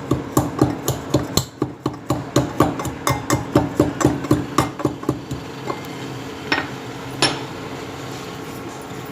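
Ginger and black peppercorns being pounded with a pestle in a mortar, sharp strikes about three a second that thin out to two last blows about two-thirds of the way through. A steady low hum runs underneath.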